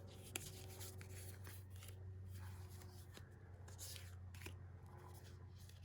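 Faint rustling and a few light taps of paper and plastic-sleeved sticker packets being handled, over a low steady hum.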